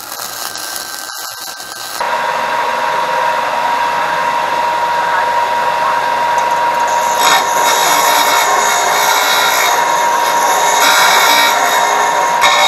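A wire-feed welder's arc crackles for about two seconds. Then a benchtop belt and disc sander runs with a steady whine, grinding a small part held against its sanding disc, and the grinding gets louder about seven seconds in.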